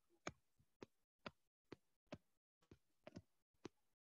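Faint sharp clicks, about nine at roughly two a second, from a stylus tapping down on a tablet as short lines are drawn, with near silence between them.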